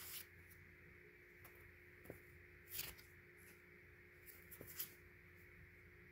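Near silence: room tone with a faint steady hum and three brief, soft rustles of handling, one at the start, one about three seconds in and one near five seconds.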